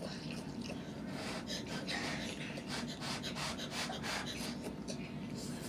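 Children slurping spicy instant noodles and breathing hard through the mouth from the chili heat: a quick, irregular run of short sucking and huffing sounds.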